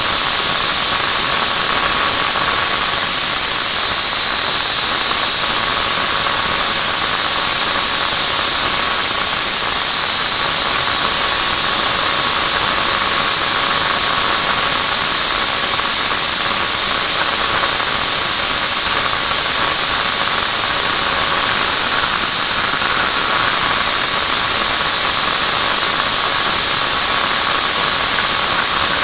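Angle grinder's electric motor running steadily at full speed, a loud high-pitched whine with a fainter lower tone beneath it.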